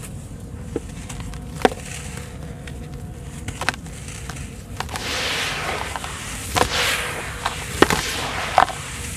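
Hands crumbling dry lumps of sand-and-cement mix in a bowl: scattered sharp cracks as pieces snap, and from about five seconds in a grainy hiss of crushed sand and powder sifting through the fingers.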